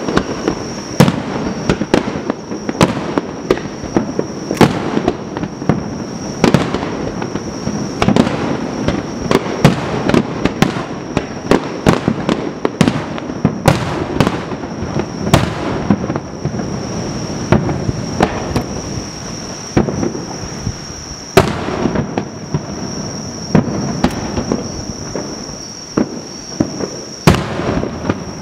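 Aerial firework shells bursting during a display: sharp bangs about one or two a second, over a continuous rumble of further bursts.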